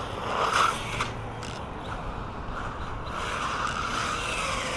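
Small electric RC car running: a steady mechanical hiss from motor and drivetrain, with a faint whine that rises and falls in pitch near the end.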